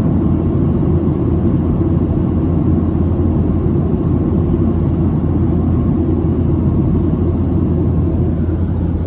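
Steady low rumble of a Boeing 737-700 heard from inside the cabin, its CFM56-7B jet engines running, with no change in pitch or loudness.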